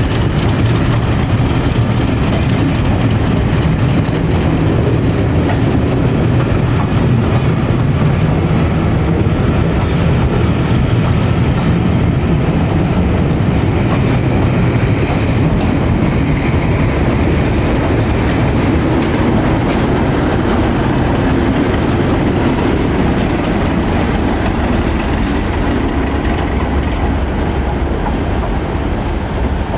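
A train of passenger coaches rolling slowly past, the wheels clicking over rail joints and pointwork, with a diesel locomotive's engine running steadily beneath.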